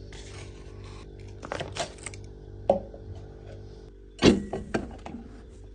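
Clicks, clinks and knocks of small household objects being handled over a steady low hum, with the loudest knocks a little after four seconds in.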